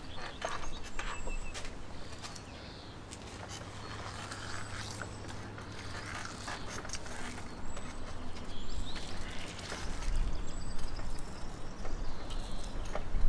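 Knife and hands working a large salmon on a table covered with plastic sheeting: scattered clicks, scrapes and rustling of the plastic. A few faint bird chirps sound in the background.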